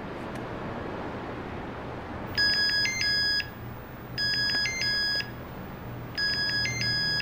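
Mobile phone ringing: an electronic ringtone tune of quick high notes, about a second long, that starts a couple of seconds in and repeats three times at roughly two-second intervals over a low steady background hum.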